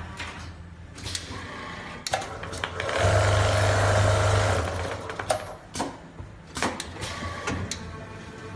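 CNC sewing machine sewing a bartack through a cushion: a fast, dense run of stitches lasting about a second and a half, starting about three seconds in, over a steady motor hum. Scattered sharp clicks and knocks from the machine come before and after the stitching.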